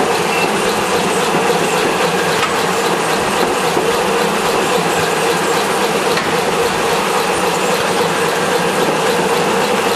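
Automatic chocolate fold-wrapping machine (HRZD-W450) running steadily: a dense, even mechanical clatter.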